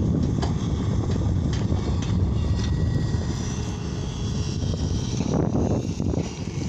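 Tata Hitachi excavator's diesel engine running steadily, with a few faint knocks over the top.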